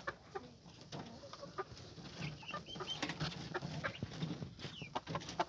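Chickens clucking quietly, low soft clucks mixed with short high chirps and a few faint clicks.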